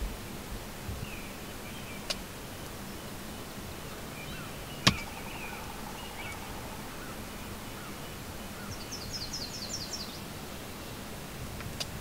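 Outdoor field ambience: songbirds chirping in the distance over a steady hiss, with a quick high trill of about eight notes a little past the middle. A few sharp clicks stand out, the loudest about five seconds in.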